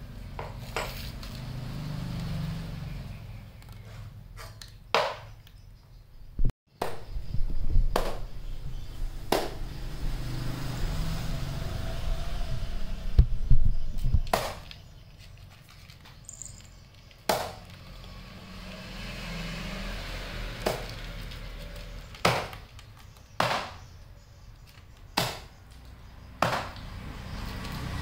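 Cat eating dry kibble from a plastic tub: sharp, irregular crunches and clicks, one to three seconds apart, over a low steady rumble.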